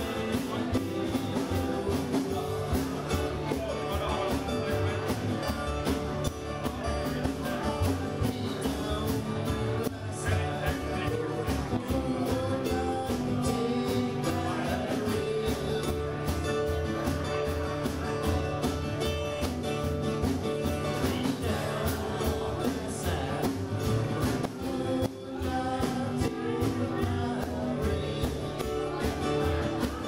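Live band playing a song: a sung lead vocal over strummed acoustic guitars and a steady beat.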